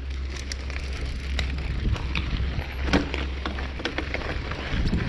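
A rider going downhill on a mountain run: a continuous gritty crunch and rattle of the ground passing underneath, dotted with small clicks and knocks, over a low steady rumble of wind on the microphone that fades about four seconds in.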